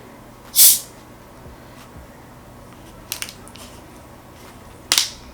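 A bottle or can of Diet Coke being opened: a short, loud hiss of escaping carbonation about half a second in. A few faint clicks follow, then a sharper tap near the end.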